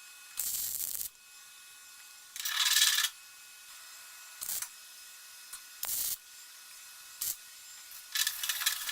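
Welder laying short tack and stitch welds on a steel patch panel in a car body: six separate bursts of welding, the one about two and a half seconds in the longest and loudest.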